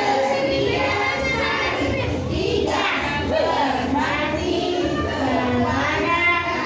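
A group of young children's voices chanting together in unison.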